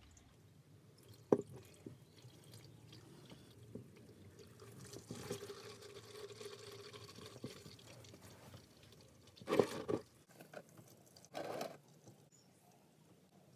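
Hot engine oil pouring from the sump drain hole into a metal drain container, a steady splashing stream, with a sharp click about a second in and two louder knocks near the end.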